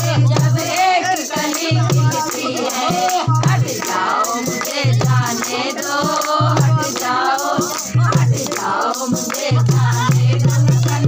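A woman sings a Hindi song to the beat of a dholak drum and the steady jingle of a chimta (metal tongs with jingles).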